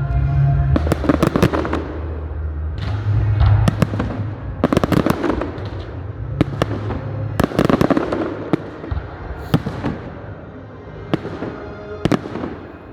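Fireworks display: repeated sharp bangs and clusters of crackling bursts, in several rapid volleys, over music playing underneath.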